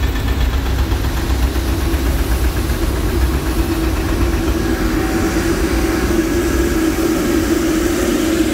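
Excavator's diesel engine idling, heard from inside the cab. A taxiing Boeing 747-8 freighter's jet engines grow louder from about halfway as it passes close by.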